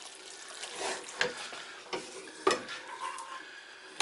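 Wet stirring of cooked spaghetti and tomato sauce in a stainless-steel pot, with several knocks of utensils against the pot, the loudest about two and a half seconds in.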